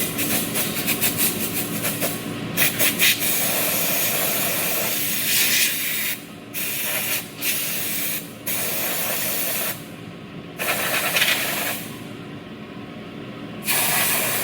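Compressed-air blow gun hissing in repeated blasts as debris is blown out from under a car. Some blasts are long and some short, with short pauses between them.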